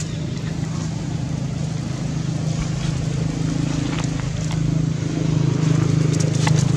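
A steady low engine hum, growing a little louder in the last couple of seconds, with a few faint clicks near the end.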